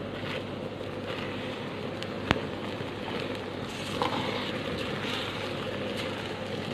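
Steel ladle stirring and scraping rice in a metal cooking pan, with a sharp clink of the ladle against the pan a little over two seconds in and a smaller knock about four seconds in, over a steady rushing background.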